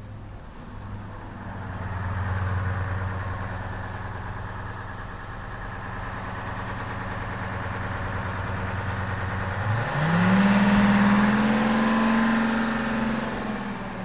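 Bus engine idling with a steady hum, then about ten seconds in rising in pitch and getting louder as the bus pulls away, holding at the higher pitch before beginning to fade at the end.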